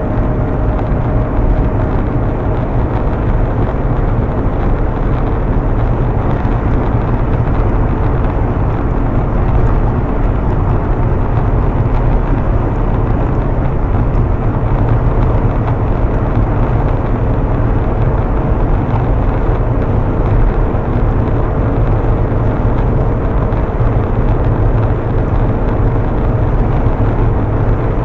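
Steady road noise inside a car cruising on a highway: an even, deep rumble of tyres and engine that holds unchanged throughout.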